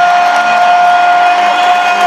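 Hockey arena goal horn sounding one long steady blast over crowd noise.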